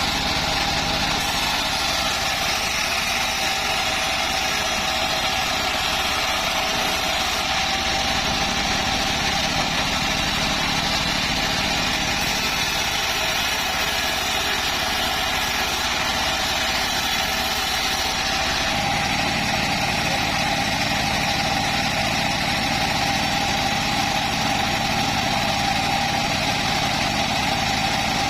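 A homemade bandsaw sawmill running steadily with its engine, a constant mechanical roar with a steady whine through it. About two-thirds of the way in, a deeper low rumble comes up under it.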